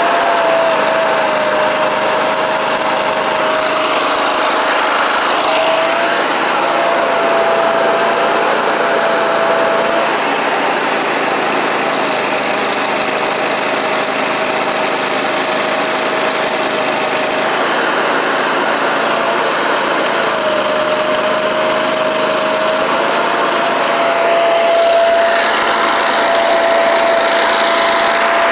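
Thermal Arc Raider 10000 Pro engine-driven welder-generator running steadily, its tone dipping and breaking now and then. Stick-welding arc crackle and hiss rises over the engine around four seconds in and again near the end.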